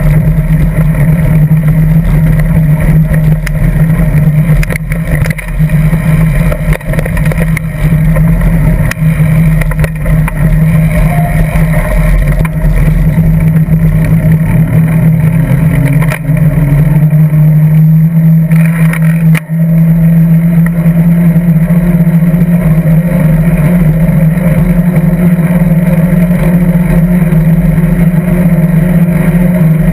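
Steady loud riding noise of a mountain bike picked up by a camera mounted on its seatpost: tyre rumble and vibration with a low hum that rises a little in pitch just past halfway.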